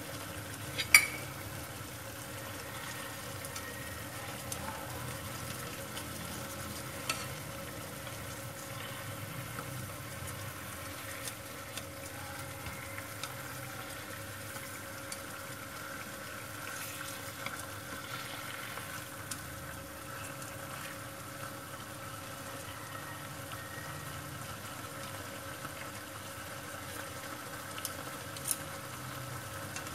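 Fish-sauce and sugar glaze sizzling and bubbling in a frying pan around fried tilapia as it reduces and thickens, a steady low sizzle. Light clicks of chopsticks and a metal spoon against the pan come here and there, the sharpest about a second in.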